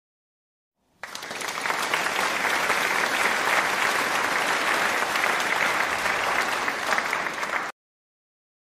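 Applause from many people clapping, starting abruptly about a second in and cutting off abruptly near the end.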